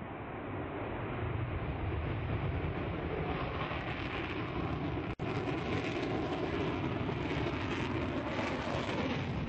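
Safir launch rocket's engine at liftoff: a steady rushing rumble that grows louder over the first two seconds and then holds, cutting out for an instant about five seconds in.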